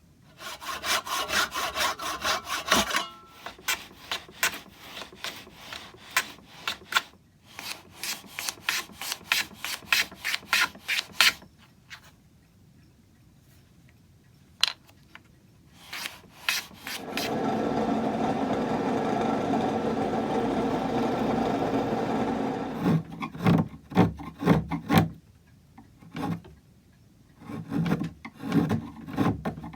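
Hand tool cutting and rubbing on a small piece of mahogany, a patch piece being cut and trimmed to size. It works in runs of quick back-and-forth strokes, with a pause near the middle and a steadier continuous stretch of about five seconds after it.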